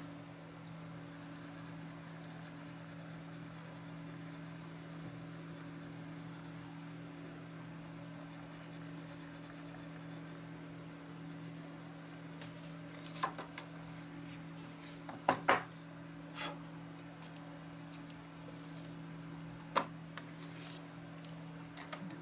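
Coloured pencil scratching and rubbing on paper as a flower is shaded, over a steady low hum. A few sharp clicks come about 13 to 20 seconds in.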